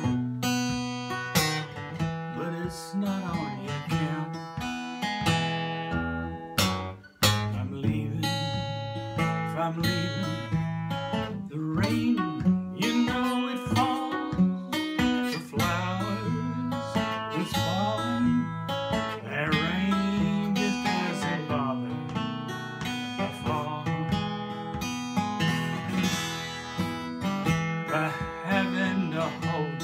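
Acoustic guitar picked and strummed through a slow song, with a man's voice singing along in several stretches. The guitar drops out briefly about seven seconds in.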